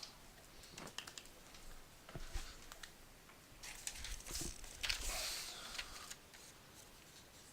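Computer keyboard typing and clicking, irregular and fairly quiet, with a few brief rustling swells midway.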